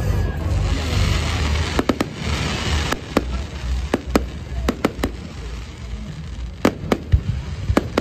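Fireworks display: about a dozen sharp, irregular cracks and bangs of bursting shells and rockets. They sit over a low rumble that eases after about three seconds.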